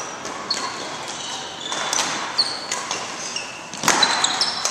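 Badminton rally: several sharp cracks of rackets striking the shuttlecock, with athletic shoes squeaking briefly on the court surface, echoing in the hall.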